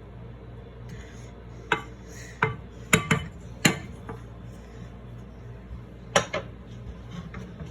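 Cookware and utensils clinking and knocking in a pan: a run of five sharp knocks in the first half, then two more near the end, over a steady low hum.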